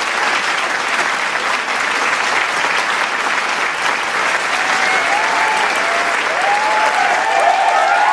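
Large crowd applauding, dense steady clapping, with cheers and whoops from individual voices rising over it in the last few seconds.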